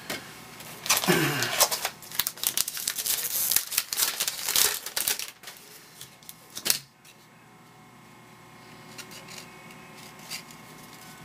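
A baseball card pack's wrapper being torn open and crinkled, a loud crackly stretch of about four seconds, with one sharp snap near the middle; then quieter clicks of the cards being thumbed through in the hands.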